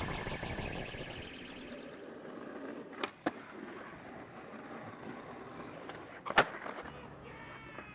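Skateboard on concrete: wheels rolling with a low steady rumble, two sharp wooden clacks about three seconds in, and a loud clack a little after six seconds as the board comes down from a flip trick. Music fades out at the start.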